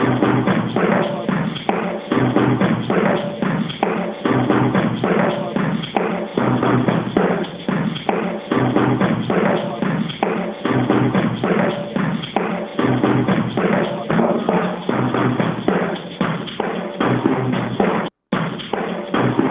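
Glitch-style electronic music with a busy, rhythmic percussion beat and a short pitched note that recurs about once a second. The sound cuts out completely for an instant near the end.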